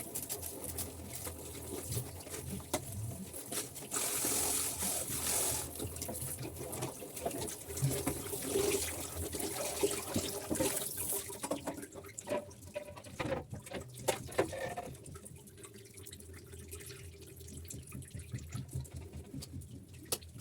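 Tap water running into a sink while things are washed under it. The flow stops about eleven seconds in, followed by a few knocks and clinks, then a quieter stretch.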